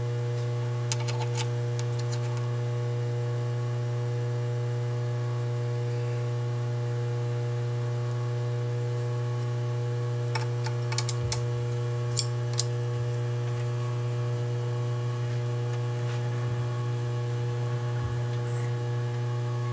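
Steady low electrical hum, with a few light metallic clicks about a second in and again around ten to twelve seconds in, from a lathe form tool and its holder being handled and set in the toolpost.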